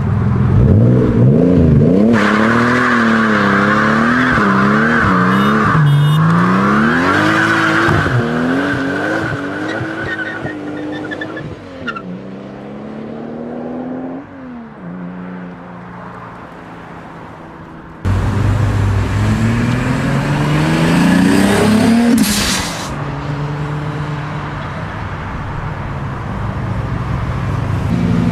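Toyota Supra MK4's 2JZ inline-six engine revving hard, its pitch swinging up and down, with a steady high tyre squeal over it for several seconds. The engine then falls away. About two-thirds in it comes back abruptly, pulling up through the revs with a sharp crack near the top.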